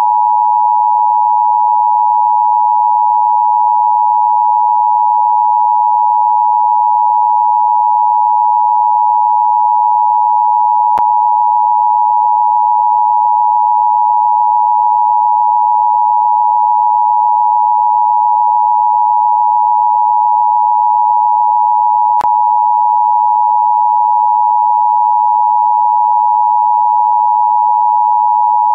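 Emergency Alert System–style attention signal: a loud, steady two-note electronic tone just under 1 kHz, held without a break, with two faint clicks partway through.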